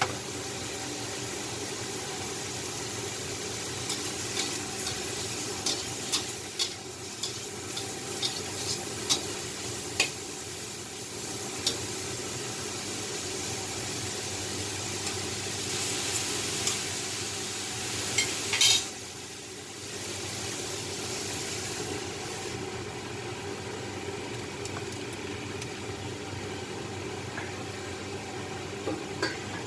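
Sliced mushrooms sizzling in a stainless steel wok, with a stirring utensil scraping and tapping against the pan in the first half. A louder metal clatter comes a little past the middle, after which the sizzle sounds duller.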